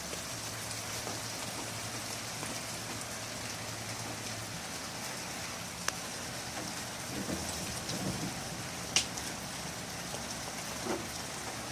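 Steady rain coming through an open window, with two brief sharp ticks about six and nine seconds in.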